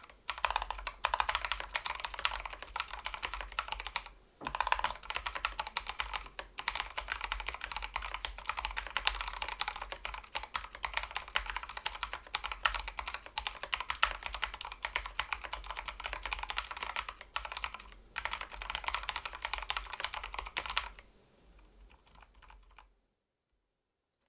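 Typing on a Drop CTRL mechanical keyboard with lubed Kailh Pro Purple tactile switches, XDA keycaps and a foam-lined case: fast, continuous keystrokes with short pauses twice. Near the end the typing turns softer and then stops.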